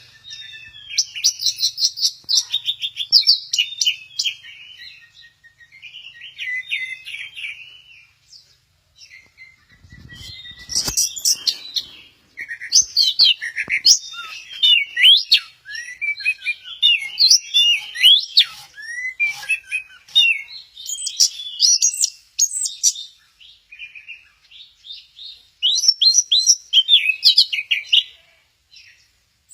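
Orange-headed thrush singing in bursts of rapid, varied, warbling phrases with short pauses between them. There is a brief low thump about ten seconds in.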